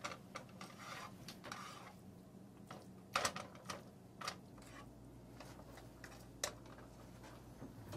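Light, irregular clicks and scrapes of a kitchen utensil on cookware as eggs are prepared, with a few sharper knocks about three, four and six seconds in, over a low steady hum.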